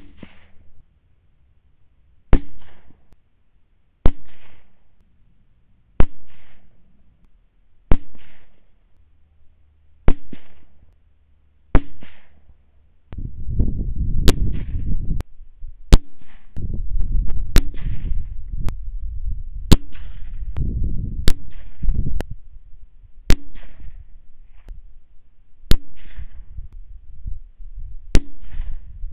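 A rapid string of .17 HMR rimfire rifle shots, about one every two seconds and closer together in the middle. Each crack has a short tail. A loud low rumble runs under the shots through the middle stretch.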